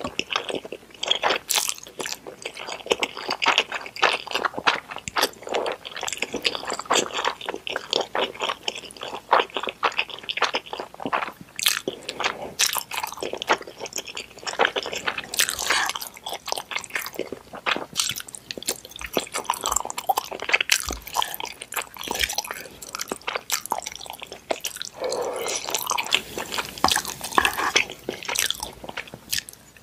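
Close-miked chewing and slurping of noodles: a steady run of small wet mouth clicks, smacks and squishes.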